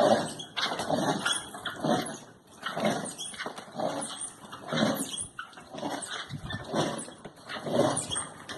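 Repeated rough growling groans, about one a second, making a zombie sound effect.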